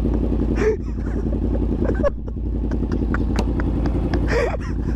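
Yamaha MT-10's crossplane inline-four engine running steadily under way, with a constant low rumble.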